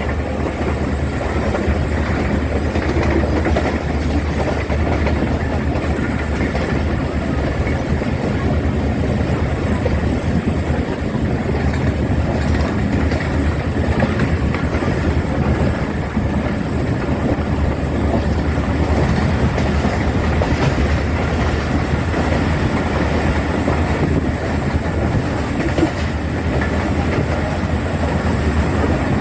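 Diesel-locomotive-hauled passenger train running steadily, wheels clicking over the rail joints over a continuous low engine rumble.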